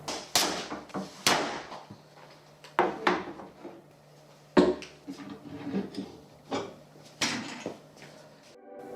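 A series of about ten sharp wooden knocks and clunks at irregular intervals, as plywood workbench parts are handled and set in place.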